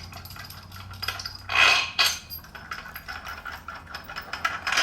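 Metal clinking and clattering of tools and steel bolts being handled while bolts are taken out of a steel bike-rack pivot block, with one louder, half-second rasping noise about one and a half seconds in.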